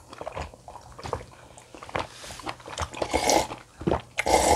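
Close-miked eating: wet chewing and mouth sounds with many short, sharp clicks, and two louder bursts about three and four seconds in.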